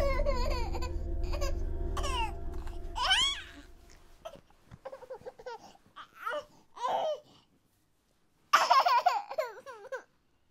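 A baby babbling in short, high-pitched vocal sounds, the loudest run about eight and a half seconds in. A low steady drone fades out in the first four or so seconds.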